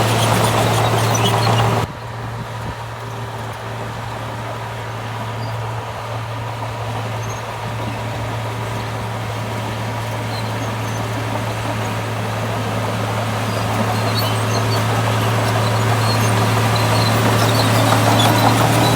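Heavy diesel engine of earthmoving machinery running steadily with a low, even hum. The sound drops abruptly about two seconds in, then slowly grows louder.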